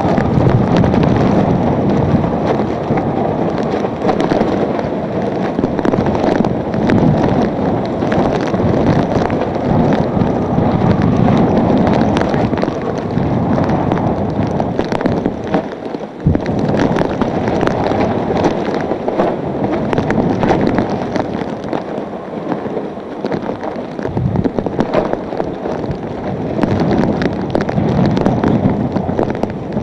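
Hurricane-force wind blowing hard with driving rain, booming over the microphone and surging in gusts every few seconds. Many sharp ticks and raps of rain and small debris run through it.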